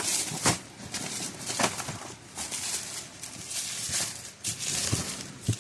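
Packaged fireworks being rummaged through and handled: irregular rustling, crinkling and light knocks of packages against each other.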